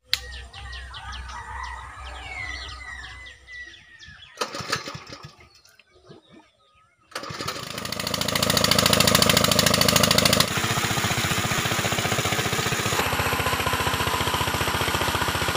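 Small petrol engine of a portable water pump running steadily from about seven seconds in, with water rushing out of its outlet. Before that, birds chirping over a low hum.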